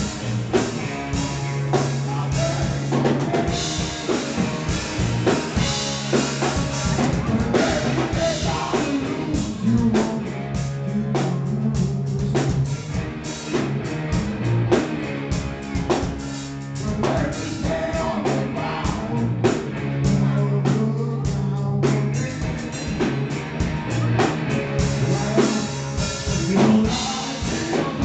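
Live rock band playing: distorted electric guitars and a drum kit with a steady beat, over a low riff that returns every few seconds.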